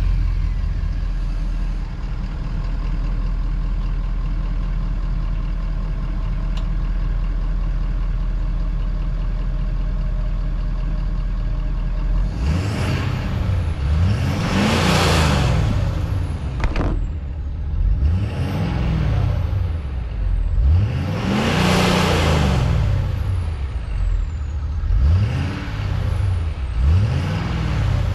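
Ford 6.7 L Power Stroke V8 turbodiesel just after a cold start, idling steadily through its factory exhaust. About twelve seconds in it is revved several times, the pitch rising and falling with each rev and a high whistle falling away after each one.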